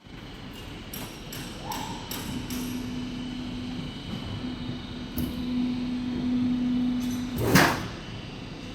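Metal roof tile roll-forming machine working: a few clicks, then a steady motor hum for several seconds that stops just before a single loud clank near the end.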